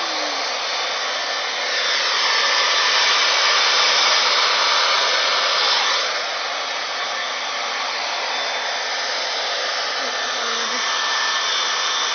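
A steady rushing noise like blown air with a faint whine in it, swelling louder for a few seconds in the middle.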